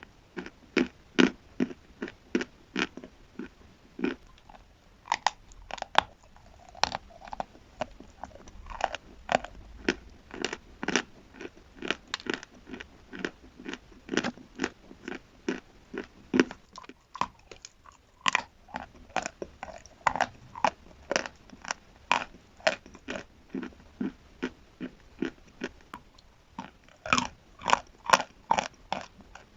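Chalk and chalk paste being chewed close to the microphone: a steady run of short crunchy bites, about two to three a second.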